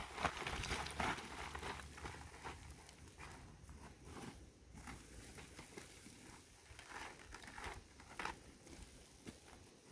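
Footsteps crunching through dry leaf litter and twigs: irregular crackles and crunches, louder in the first couple of seconds, then fainter.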